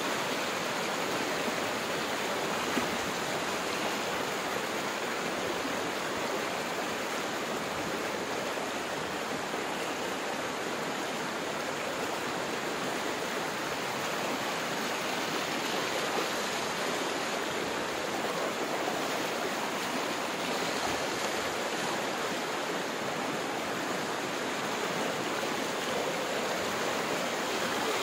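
Muddy floodwater rushing and churning in a strong, steady current: river water pouring across land through a breached embankment.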